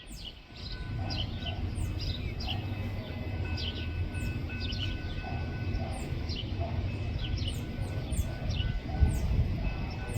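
Small birds chirping over and over in short, quick falling notes, over a low steady rumble and a faint steady high whine.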